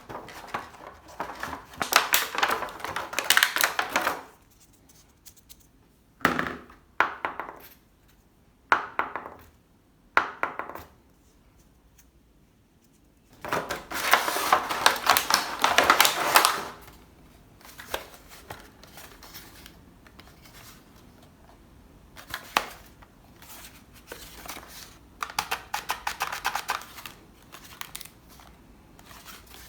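Packaging crinkling and tearing in irregular bursts as a toy playset is unpacked, with a few short knocks in between. The longest stretch of crinkling comes about midway.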